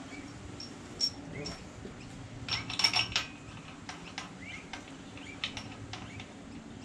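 Steel main-cap bolts and metal parts clinking and tapping against the cast-iron main bearing cap and block of a Ford 351 Cleveland V8 as the bolts are handled and started by hand. There is a single clink about a second in, a quick cluster of clinks around three seconds in, and another near the five-and-a-half-second mark.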